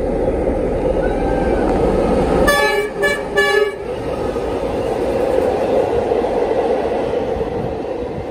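The Indian Pacific passenger train running through close by: the heavy rumble of its diesel locomotives, which sound a multi-tone horn in three short blasts about two and a half seconds in, then the steady rolling noise of the stainless-steel carriages going past.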